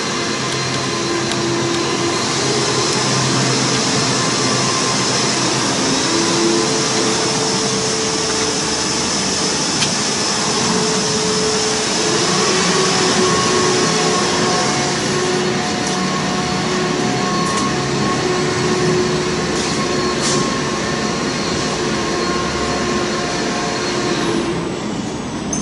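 Steady whirring of motor-driven workshop machinery, with several steady hums at different pitches that come and go. It eases somewhat near the end.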